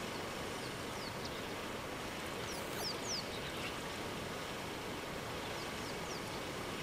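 Vultures at a carcass giving short, high, falling squeals in three small clusters, about a second in, around three seconds in, and near the end, over a steady background hiss.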